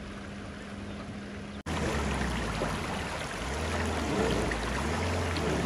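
Off-road SUV's engine running while the vehicle is stuck in mud. About a second and a half in, a cut brings a louder stretch of engine sound with a splashing, water-like wash over it.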